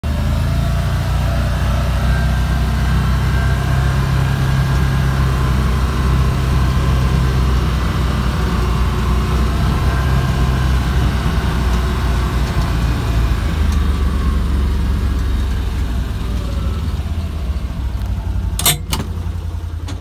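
Farm vehicle's engine running with a steady low drone as it drives across a grass paddock, heard from inside the cab. Two sharp clicks near the end.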